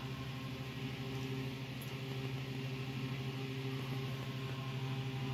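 Steady hum of grow-tent fans running, a strong low drone with an even airy hiss over it.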